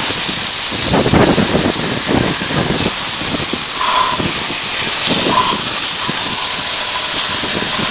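Garden hose spray nozzle jetting water onto a truck engine bay, rinsing off degreaser: a steady, loud hiss of spray with water spattering on the engine cover and parts.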